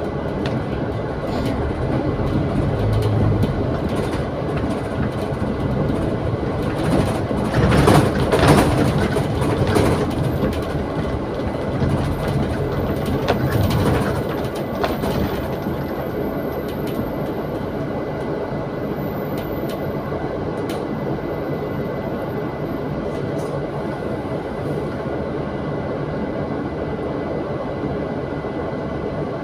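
Double-decker bus heard from inside the upper deck: a steady drone of engine and road noise with occasional clicks and rattles. It is louder while the bus pulls along the wet street in the first half, then settles to an even, lower drone as it stands at red traffic lights.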